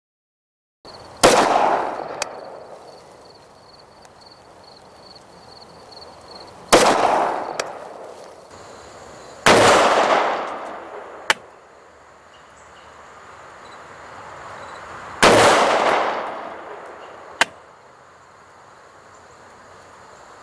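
Semi-automatic rifle fired four single shots several seconds apart, each with a short echoing tail. A sharp short click follows each shot one to two seconds later.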